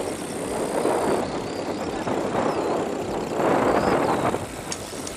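Wind buffeting the microphone of a helmet-mounted camera on a moving bicycle: a rushing noise that swells and fades, loudest a little past the middle.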